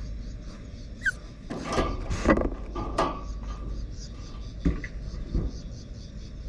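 Typhoon wind rumbling on the microphone, with a short high dog whine about a second in and a cluster of knocks and rattles between about one and a half and three seconds, then two more knocks near the end.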